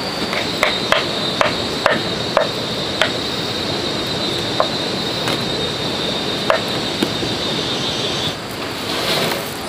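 A run of about eleven sharp knocks at an uneven pace, close together over the first three seconds and then sparser, over steady background noise with a high, steady whine that cuts off near the end.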